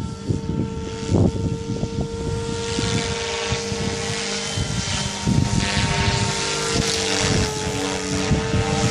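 SAB Goblin 500 electric RC helicopter in flight, its Xnova 1200kv motor and rotor head giving a steady whine. Gusty wind buffets the microphone underneath.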